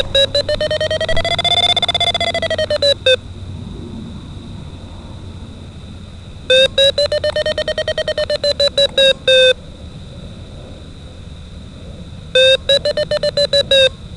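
DIY Arduino-based sailplane variometer beeping through an amplified loudspeaker, its audio relayed over an FPV video downlink: three runs of rapid beeps a few seconds long, with the pitch rising slightly and falling back in the first run, over a steady hiss. This variometer is set to sound only on rising air, so each run marks the Radian glider climbing in lift.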